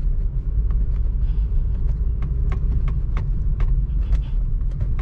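Honda Civic being driven, heard from inside: a steady low rumble of engine and road, with short sharp ticks scattered throughout.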